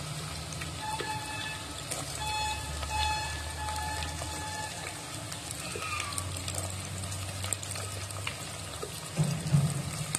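Chopped onions sizzling in hot oil in a nonstick pot, a steady crackle, with a low hum underneath. A couple of louder knocks come near the end.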